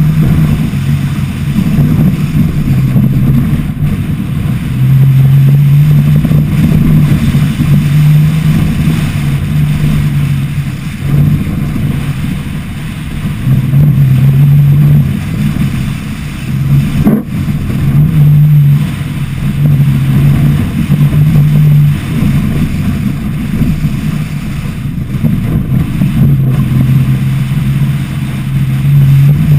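Off-road Tacoma pickup's engine pulling hard at speed over desert dirt, its drone holding steady for a few seconds at a time and easing off in between, with wind rushing over the hood-mounted microphone.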